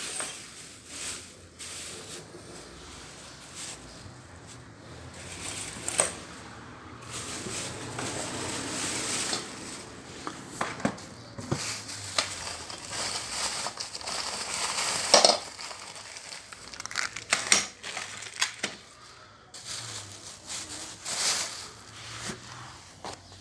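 Workbench handling noise from tools and cable being worked: rustling and crinkling with scattered sharp clicks and metal clinks, the loudest about 6 and 15 seconds in.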